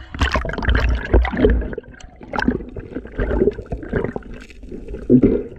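Water gurgling and sloshing around a camera held underwater, loudest in the first second and a half, then quieter irregular gurgles.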